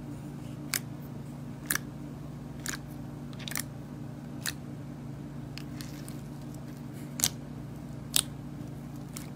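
Sharp crisp crunches of a brittle ASMR material, about seven at uneven intervals, over a steady low hum.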